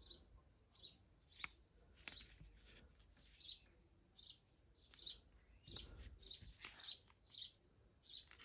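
Faint bird chirps: short high notes, often in pairs, repeating about every half second to second, with a few soft clicks.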